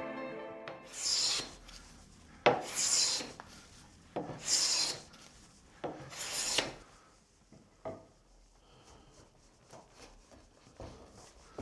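Four strokes of a hand plane shaving wood, each a short rasping hiss about a second and a half apart, followed by a few light knocks. The strokes are trimming the upper rail's tenon so that it fits a bridle joint that is slightly too tight.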